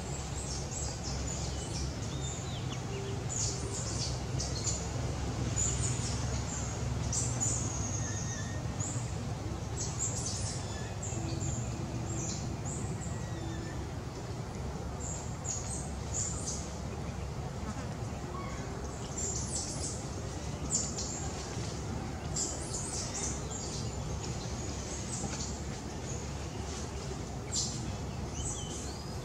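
Birds chirping in short, high calls scattered throughout, over a steady low hum.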